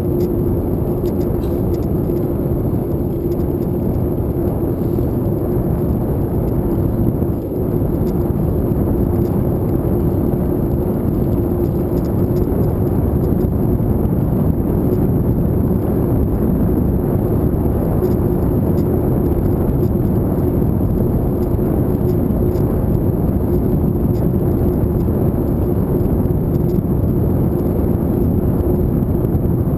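Wind buffeting the microphone of a bicycle-mounted camera, together with bicycle tyres rolling on asphalt: a loud, steady rushing noise with a constant low hum underneath. It dips briefly about seven seconds in.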